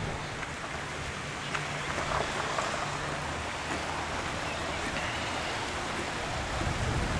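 Floodwater from a broken beaver dam rushing steadily.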